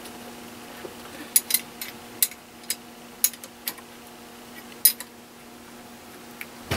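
Small metal hardware clinking in the hands, a bolt, washers and the metal lug of a heavy battery cable, giving a string of sharp light clicks from about a second in to about five seconds in. A steady low hum runs underneath.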